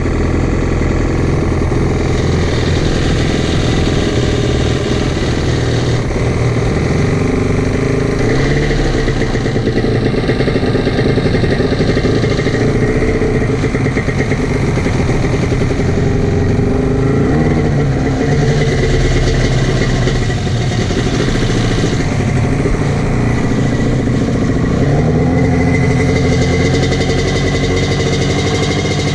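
Jet ski engine running steadily, its pitch rising and falling a few times as the throttle is worked.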